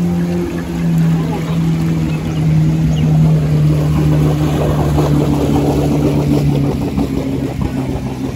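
Maruti Suzuki Eeco van's engine humming steadily as it wades slowly through floodwater up to its wheel hubs, with water sloshing and splashing around its wheels. The splashing is thickest from about four to seven seconds in, and the engine note fades near the end as the van moves off.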